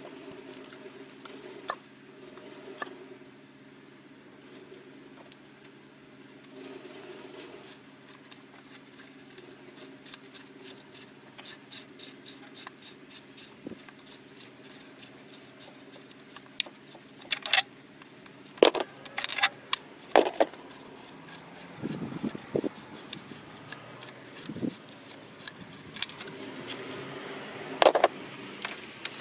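Spark plug lead boots being twisted and pulled off the plugs of an Opel Astra F 1.4 engine: scattered clicks, rubber and plastic rubbing, with a run of louder snaps and rattles in the second half over a faint steady hum.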